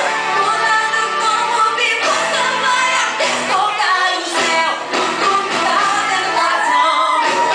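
Young girls singing a song over instrumental accompaniment.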